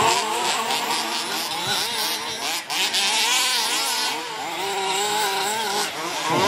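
Several radio-controlled off-road buggies racing, their small engines revving up and down and overlapping as they accelerate and brake around the track.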